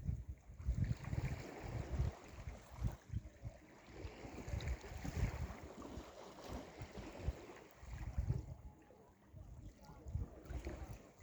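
Sea waves washing on the shore, with wind buffeting the microphone in uneven gusts. A louder wash of surf comes from a couple of seconds in to about halfway.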